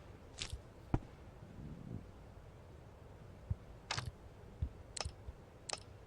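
A handful of short clicks and light knocks, as of small objects being handled: brief sharp sounds about half a second in and again around four, five and nearly six seconds in.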